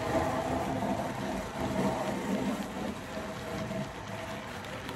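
Model train passenger cars rolling past on the track: a steady rumble and clatter of wheels on the rails, easing a little as the last car goes by.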